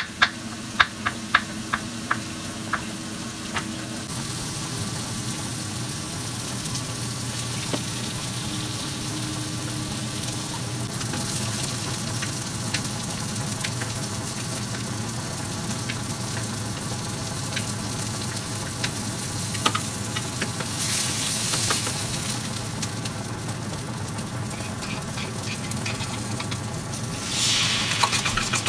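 A knife chopping mushrooms on a plastic cutting board, quick sharp taps, for the first few seconds. Then hamburger steaks and sliced mushrooms sizzling in butter in a frying pan, stirred with chopsticks. The sizzle swells louder twice in the second half.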